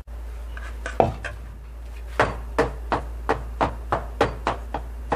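Round metal cake pan full of batter tapped repeatedly on a stone countertop, settling the batter before baking. One knock about a second in, then a steady run of about three knocks a second.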